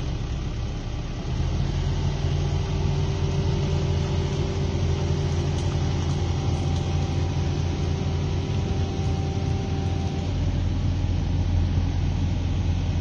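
Hitachi ZX205 excavator's diesel engine idling steadily, with a thinner steady whine over it that stops about ten seconds in.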